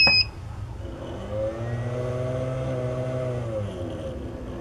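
Click of the power button on a CD-R King RS 1000VA sine-wave inverter and a short high beep as it switches on. Then an engine-like hum rises, holds for about two seconds and fades away.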